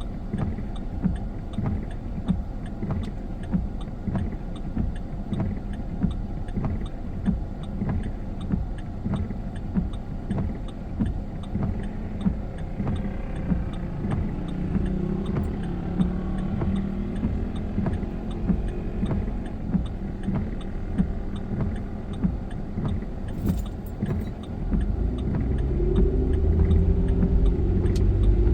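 A car driving, heard from inside the cabin, with a regular tick about once a second. The engine note rises in the middle and grows louder about three seconds before the end as the car speeds up.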